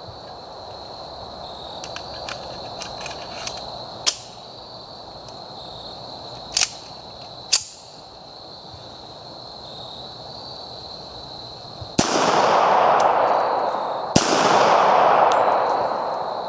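Springfield 1911A1 .45 ACP pistol being worked after a jam: a few small clicks and three sharp metallic clacks. Then two loud shots about two seconds apart near the end, each followed by a long fading echo.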